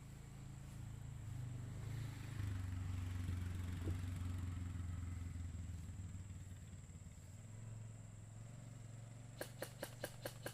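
A motor vehicle's engine running, swelling in the middle and fading away. Near the end, a rapid string of about six sharp clicks in just over a second.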